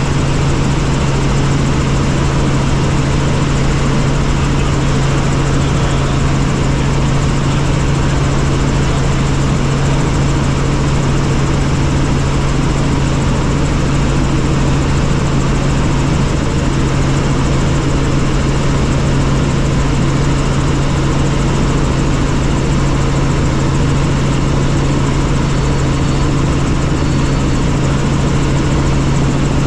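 Helicopter running, a steady loud drone with a strong constant low hum and no change in pitch or level.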